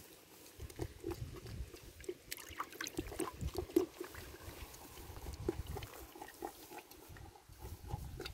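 Goat kids slurping and chewing soaked bread from a plastic bucket, with many quick, irregular wet smacks and laps.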